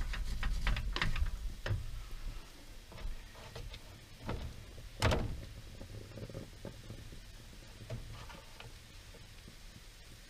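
Wooden spatula stirring and scraping food in a nonstick frying pan, a quick run of light clicks and scrapes for the first couple of seconds, then a single louder knock about five seconds in; only faint scattered ticks follow.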